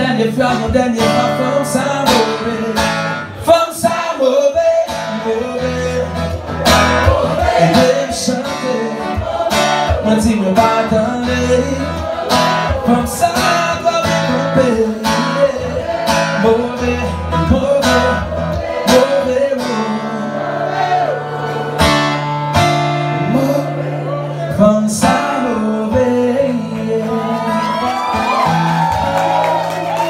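A man singing a song to his own strummed acoustic guitar, with the strums coming at a regular beat under the sung melody.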